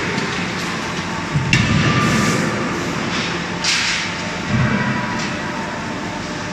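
CNC hydraulic die forging hammer striking hot wrench blanks, a few sharp metal-on-metal blows at uneven intervals over steady forge-shop machinery noise.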